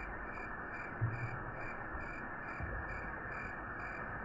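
Bathroom sink tap running steadily while the water heats up, with a soft bump about a second in. A faint high chirp repeats about twice a second throughout.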